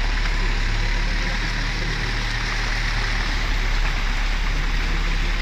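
An off-road 4x4's engine running steadily at low revs under an even rushing hiss.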